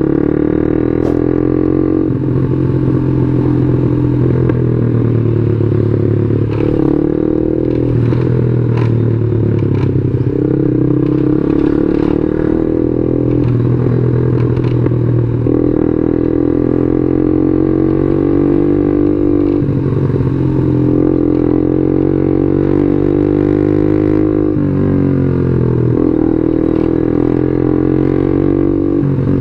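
Yamaha Jupiter MX 135's single-cylinder four-stroke engine running under way, its pitch climbing steadily and then dropping sharply back about ten times, with scattered sharp clicks over the top.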